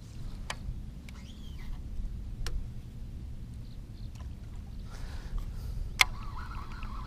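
Steady low rumble of wind and water on an open-air action-camera microphone, broken by a few sharp clicks, the loudest about six seconds in.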